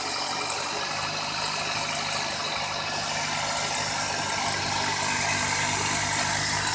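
2001 Toyota Corolla engine idling steadily, its low hum growing a little stronger about a second in.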